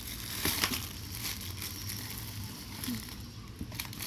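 Packaging being handled during an unboxing: rustling and crinkling, with sharp crackles about half a second in and again near the end.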